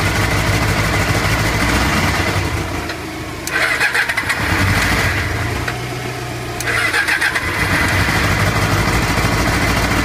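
Yamaha XJR400's air-cooled inline-four motorcycle engine running unevenly after sitting unused for years, its sound sagging twice and picking back up with a harsher rattle each time: it revs up poorly.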